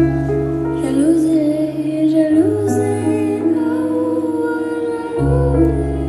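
Live pop music: held keyboard chords over a bass, with a woman's voice sustaining and gliding over them without clear words. The bass drops away in the middle and comes back near the end.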